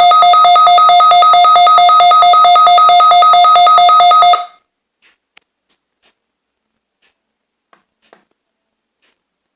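NOAA Weather Radio warning alarm tone sounding loud and steady with a fast pulsing, sent as part of the required weekly test of the alarm. It cuts off sharply about four and a half seconds in, leaving a few faint clicks.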